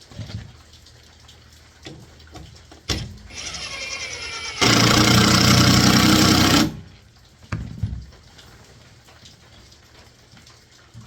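Power drill driving a screw through a barrel strap into a 2x4: the motor spins up about three seconds in, runs hard for about two seconds as the screw drives home, then stops abruptly. A few knocks of handling come before and after.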